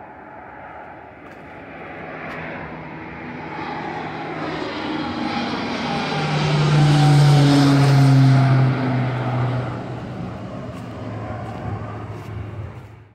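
Twin-engine turboprop airliner passing low overhead: its propeller drone builds to a peak about seven to eight seconds in, then falls in pitch and fades as it moves away, cutting off suddenly at the end.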